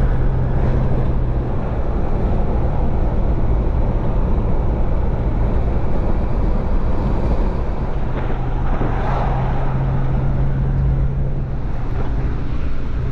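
A vehicle driving along: a steady engine hum over road noise.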